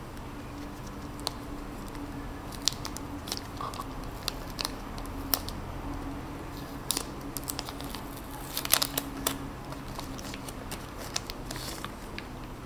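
Packaging being handled, with scattered crinkles and sharp clicks that are thickest and loudest about nine seconds in, over a steady low hum.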